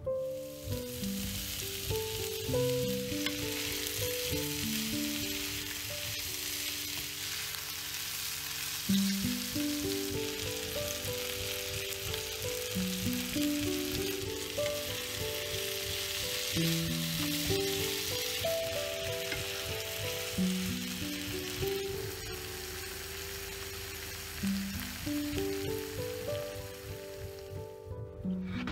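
Sliced onions, red bell pepper and halved cherry tomatoes sizzling steadily in oil in a nonstick frying pan. The sizzle stops near the end. Background music of held notes plays throughout.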